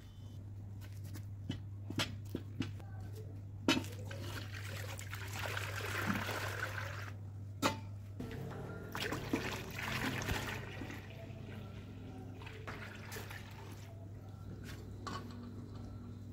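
Milk pouring and sloshing in a large metal kadhai, in two stretches of splashing, with a few sharp metallic clicks of the long iron ladle against the pan. A steady low hum runs underneath.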